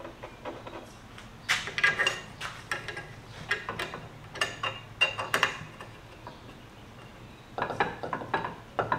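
Hand-turned hex key clicking and clinking against screw heads as screws are driven through a 3D-printed plastic jig into tapped holes in mild steel. The clicks come in three short clusters of irregular metallic taps.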